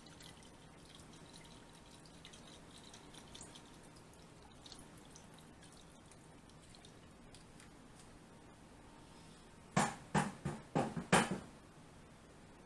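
Sauce dribbling from a bottle onto raw chicken breasts, heard as faint wet dripping and small clicks. About ten seconds in, a quick run of five or six loud knocks or rattles.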